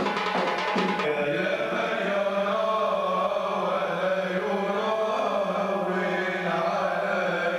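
Men's voices chanting with long, drawn-out notes. Frame drum strokes stop about a second in, leaving the voices alone.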